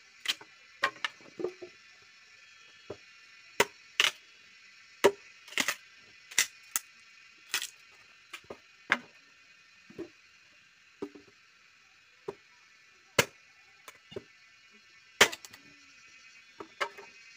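Axe blows chopping and splitting firewood into sticks: sharp wooden knocks, irregularly spaced at about one a second.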